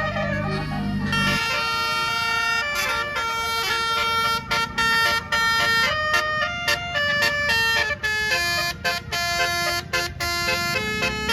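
Bus telolet horn playing a rapid tune of short, stepped notes, with a low rumble underneath.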